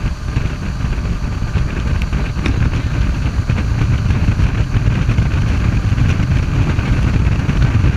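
Motorboat engine running steadily at speed while towing a water skier, with the rush of churning wake water; it grows gradually louder.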